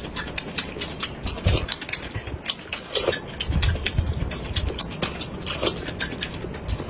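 Close-up eating sounds: chewing and lip smacks, with many quick, irregular mouth clicks.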